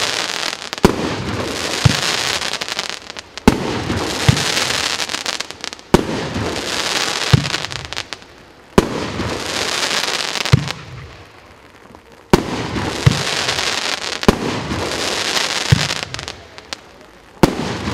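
Firework cake firing shot after shot: a sharp bang every one to two seconds, each followed by a dense hissing crackle as glittering stars burn out, with a few short lulls between volleys.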